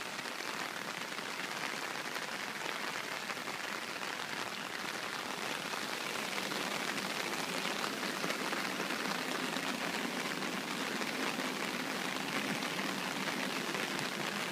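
Heavy rain falling, a steady even hiss that grows slightly louder about halfway through.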